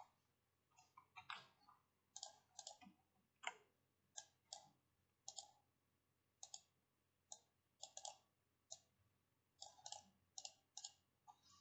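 Faint computer mouse clicks, single and in quick pairs, coming irregularly about once a second.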